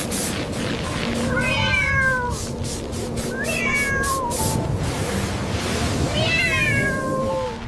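A cat meowing three times, each meow falling in pitch, over a steady background noise.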